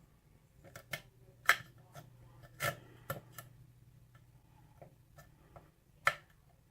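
Six-pin Weiser-keyway pin-tumbler lock being single-pin picked: about a dozen small, sharp clicks as the pick lifts the pins and they set at the shear line, the loudest about a second and a half in.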